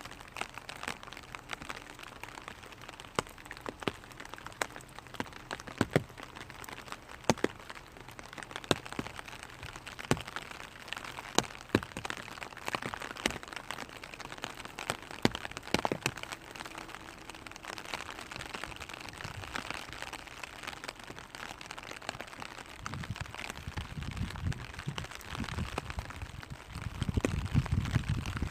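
Raindrops tapping on a clear vinyl umbrella: irregular sharp drips over a steady rain patter. A low rumble joins in near the end.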